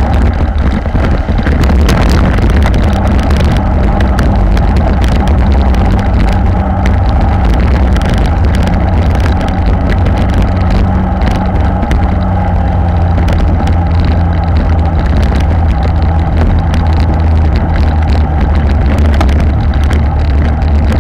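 Loud, steady rumble of wind buffeting an action camera's microphone on a road bike at racing speed, mixed with tyre noise on paved and brick road.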